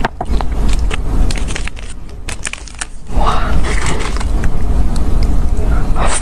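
Close-miked chewing with small wet mouth clicks, then from about three seconds in a paper pastry wrapper rustling and crinkling as it is handled, with a bite into the soft pastry near the end.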